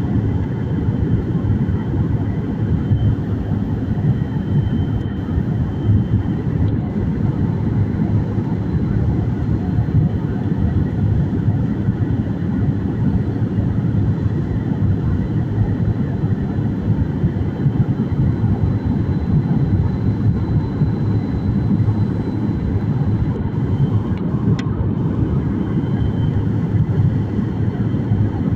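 Steady cabin noise of an airliner in flight: a constant low rumble of engines and airflow, with a faint high engine whine.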